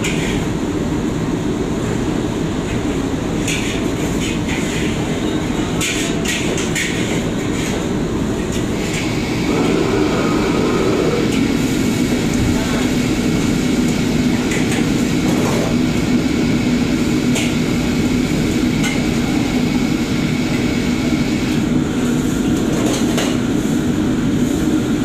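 Busy wok station in a commercial kitchen: a steady, loud rush of gas wok burners and the extraction hood, with short metallic clanks of spatulas against the woks. The rush gets louder about ten seconds in.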